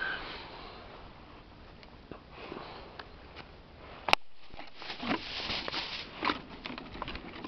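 Close, faint rustling and handling noise as a cloth bait bag and a plastic bait bottle are handled, with a single sharp click about four seconds in and a burst of rustling about a second later.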